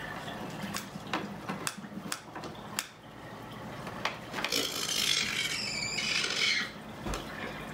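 Male toco toucan making hormonal nesting calls: a scatter of sharp clicks, then a loud, harsh rasping call from about halfway in that lasts a couple of seconds. These are the sounds he makes when hormonal and nesting.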